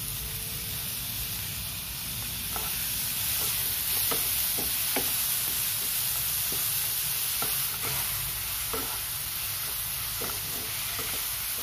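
Vegetables sizzling in a hot non-stick pan while chopped tomatoes are stirred in with a wooden spatula. The spatula knocks and scrapes against the pan in short, irregular clicks over the steady sizzle.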